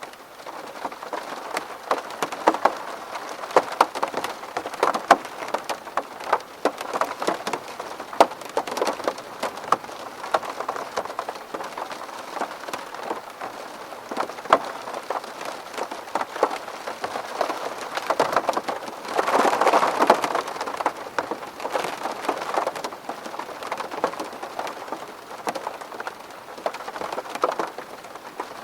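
Rain falling on window glass: a steady patter with many sharp individual drops tapping, and a brief heavier spell about two-thirds of the way through.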